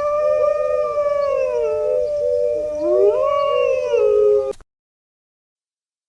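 Dogs howling together, two long wavering howls at different pitches overlapping. They cut off abruptly about four and a half seconds in.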